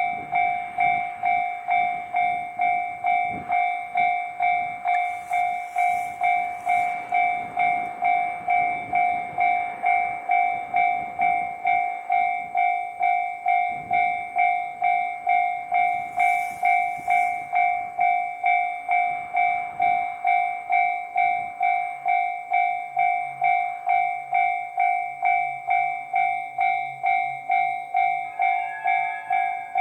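Level-crossing alarm bell ringing in an even, pulsing beat about twice a second, while a diesel train rattles over the crossing with clicking wheels on the rail joints for roughly the first twenty seconds. After the train has passed, the alarm keeps ringing on its own.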